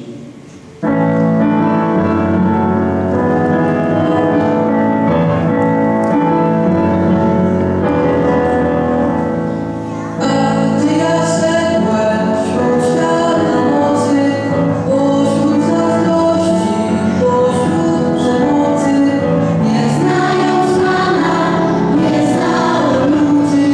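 A song sung by choir-like voices over instrumental accompaniment. The accompaniment grows fuller and brighter about ten seconds in.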